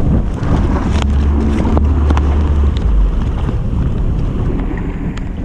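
Twin outboard motors running with the boat underway, mixed with wind buffeting the microphone and water rushing in the wake. A few sharp clicks and rustles come from tackle being handled, in the first couple of seconds.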